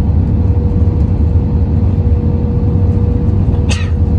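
Steady cabin noise inside an Airbus A320 during its night arrival: a low rumble from the engines and airflow with a steady hum running through it. There is a single short sharp click or knock about three and a half seconds in.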